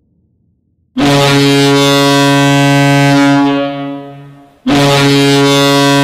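The University of Vermont's hockey goal horn, heard dry with no reverb, sounding two long blasts of one steady low chord. The first starts about a second in, holds for about two and a half seconds and fades away. The second starts near the end.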